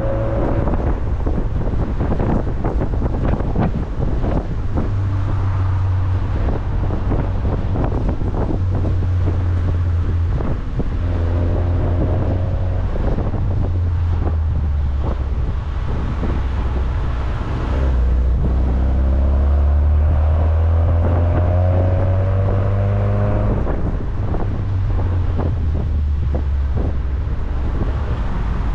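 Car engine pulling through the gears while driving, its note rising under acceleration and dropping back several times, over a steady low drone of road and wind noise.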